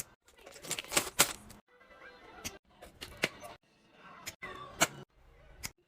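Restocking sounds: a series of sharp clicks and knocks, as of plastic containers and packaging being handled and set down, in short clips cut one after another, with music underneath.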